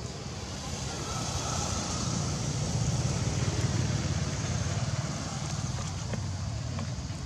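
A motor vehicle passing: a low rumble that swells to its loudest about halfway through and then fades, over a steady high hiss.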